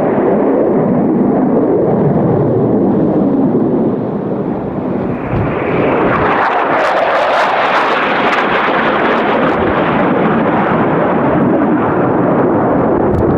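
Loud jet noise of an F-22 Raptor's two afterburning turbofan engines as it flies low past. After a brief dip about four seconds in, the roar returns higher in pitch during the closest part of the pass.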